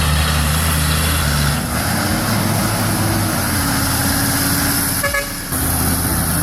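Heavy truck engine running under load: a steady low drone whose pitch shifts a little. The sound dips briefly about five seconds in.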